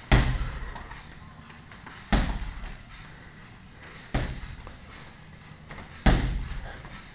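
Gloved punches landing on a punching ball on elastic cords: four sharp thuds about two seconds apart, each dying away in the room.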